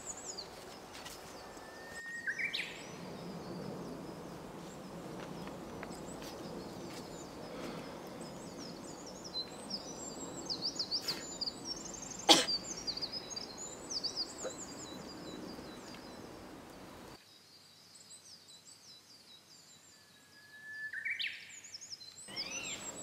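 Woodland ambience with small birds chirping and singing throughout. A rising whistled call comes twice, once near the start and once near the end, and a single sharp click comes about halfway through. The background hiss drops suddenly a few seconds before the end.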